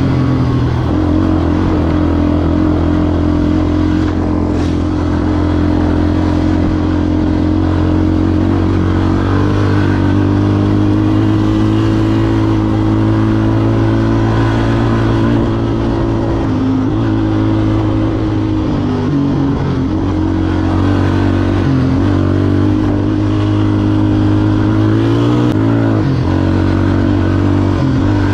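ATV engine running under way, its pitch mostly steady, with a few brief dips and rises as the throttle changes in the second half.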